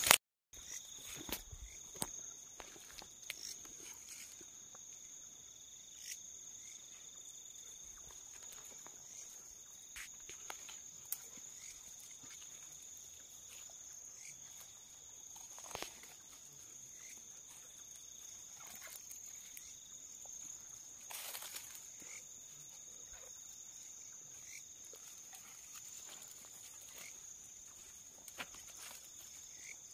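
Steady high-pitched trilling of night insects at two pitches, with scattered faint clicks and rustles in the undergrowth.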